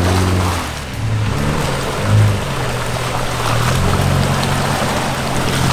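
Jeep Wrangler JK Rubicon's Pentastar V6 engine running as it drives through a muddy creek, with water splashing around the tyres.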